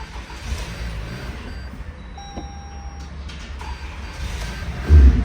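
2018 Toyota Camry engine idling after a crank-no-start repair, running with its intake air boot off. An electronic beep sounds about two seconds in, and there is a brief louder surge near the end.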